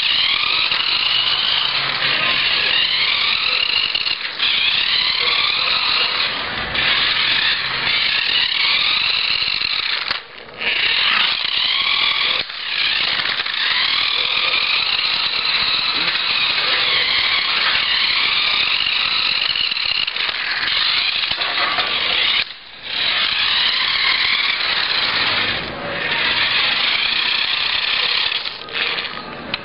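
Small electric motor and gears of a battery-powered toy RC Mini Cooper whining as it drives, the pitch rising and falling over and over as it speeds up and slows down, cutting out briefly a few times.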